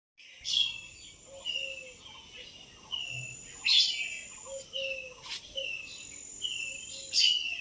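Birds chirping: a string of short, falling whistled notes, one or two a second, with three louder sharp calls among them. A thin high steady tone comes and goes behind them.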